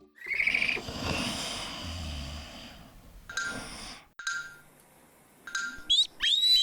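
Cartoon sound effects: a long breathy, sigh-like sound, then a few short soft noises and a high chirping tweet near the end.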